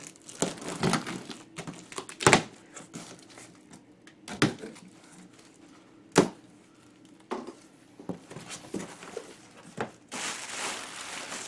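Utility blade slitting packing tape on a cardboard box, with cardboard flaps scraping and several sharp knocks. Near the end, plastic air-pillow packing crinkles as it is handled.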